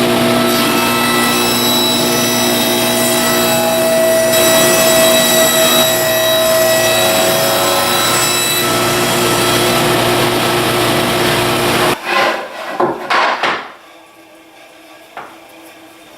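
Stationary woodworking machine running loudly and machining a board, holding a steady tone, then stopping abruptly about twelve seconds in. A few wooden knocks follow as boards are handled.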